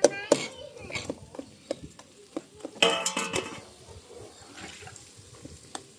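Dishes and metal utensils clinking and clattering: a run of short, sharp taps and knocks, with a denser ringing clatter about three seconds in.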